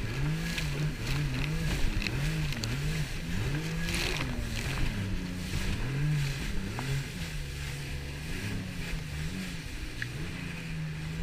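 Jet ski engine running at speed, its pitch rising and falling about once a second, over the rush of wind and spray.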